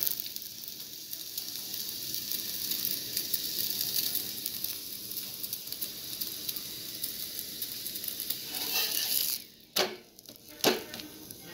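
Oil sizzling steadily under a coconut-stuffed flatbread (thengai oputtu) frying on an iron dosa griddle over a low flame. About nine seconds in the sizzle drops away sharply and two sharp knocks follow.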